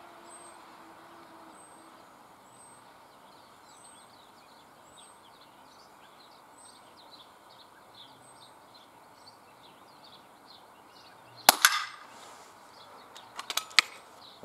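A .22 pneumatic air pistol (NTK Buster) fires once, a single sharp crack about eleven and a half seconds in, followed about two seconds later by a few quick clicks. Faint high bird chirps repeat about once a second through the first nine seconds.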